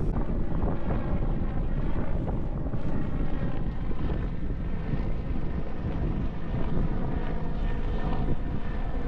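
Wind rumbling on the microphone of a moving bicycle, with a steady droning hum over it.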